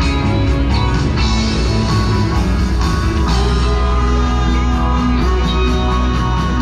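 Rock music with guitar and a heavy bass, playing loud and steady.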